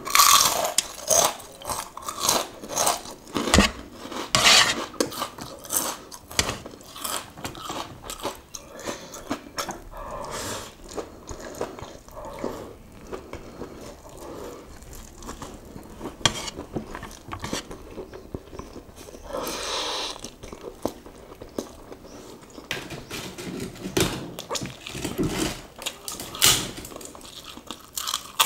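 Close-up eating sounds: crunchy bites into a fried keropok cracker and chewing, with instant noodles slurped in from chopsticks. Sharp crunches come again and again, with a couple of longer slurping sounds.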